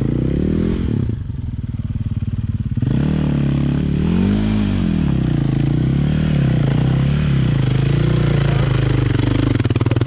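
Off-road motorcycle engine running under way on a dirt trail, heard close up. It eases off about a second in, picks up again near three seconds, then rises and falls in pitch as the throttle opens and closes.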